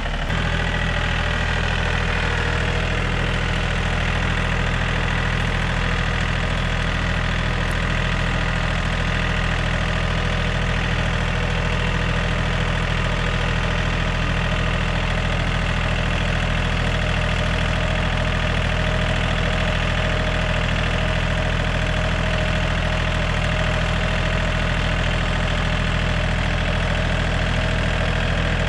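John Deere tractor engine running steadily at an even, unchanging speed.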